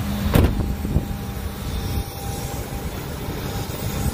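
A truck door shutting with a thump about half a second in, with a smaller knock about a second in, over the steady hum of the Ford F-450's Triton V10 gasoline engine idling.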